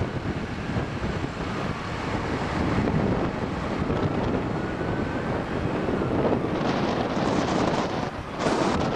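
Wind buffeting the microphone of a camera moving along a road with a group of cyclists: a steady rushing noise, with a brief, harsher gust near the end.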